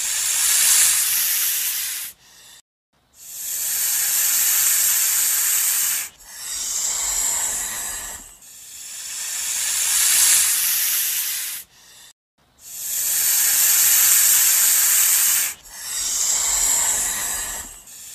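Snake hissing, about six long hisses of two to three seconds each with short breaks between them.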